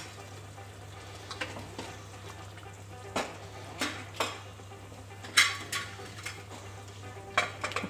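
Metal spoon stirring mutton curry in an aluminium pressure cooker pot, scraping and clinking against the sides in a run of separate knocks, the loudest one ringing briefly about five and a half seconds in.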